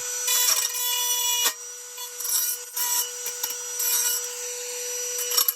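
Small high-speed rotary tool running with a steady whine, its grinding bit scraping on rusty steel in irregular strokes, deburring a cut-off bracket edge so no sharp pieces remain.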